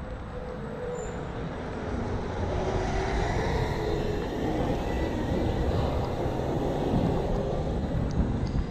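Wind buffeting the microphone and road noise from riding an electric scooter, a steady rush that grows louder about two seconds in. A faint steady whine runs underneath.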